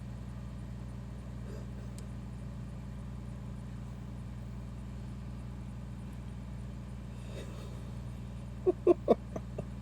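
A man makes a quick run of short, loud, pitched vocal noises near the end, over a steady low hum.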